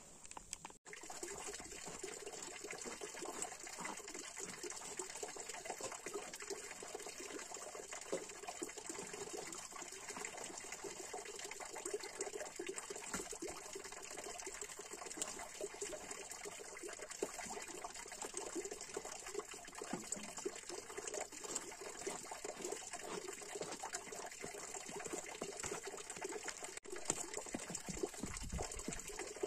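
Water running steadily from the spout of a stone fountain into its trough.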